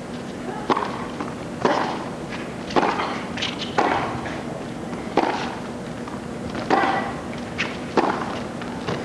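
Tennis ball struck back and forth with rackets in a rally on a hard court: about seven sharp hits roughly a second apart, with a few lighter knocks between them.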